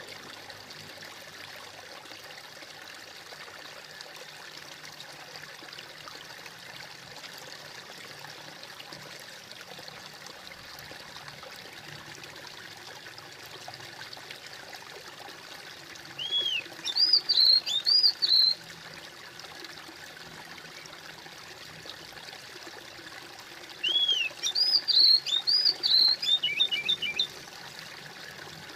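Steady trickling and splashing of a small stream. A songbird sings two short bursts of quick, high chirping notes, about halfway through and again near the end, louder than the water.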